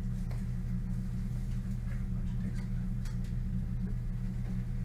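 Classroom room tone: a steady low hum with light ticks and clicks at irregular times.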